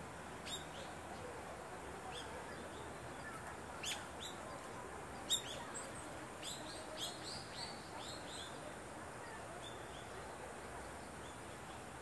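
Warbling white-eyes giving thin, high call notes: about a dozen brief chirps, each falling in pitch, bunched mostly in the middle and loudest about five seconds in, over a steady background hum.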